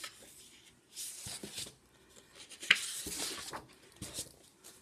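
Sheets of patterned card paper rustling and sliding against each other as they are lifted and shuffled by hand, in several short bursts, with one sharp crisp snap of paper near the middle.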